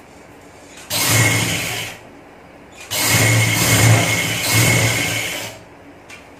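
Electric sewing machine running in two bursts, about a second and then about two and a half seconds, stitching a narrow pintuck along the fabric.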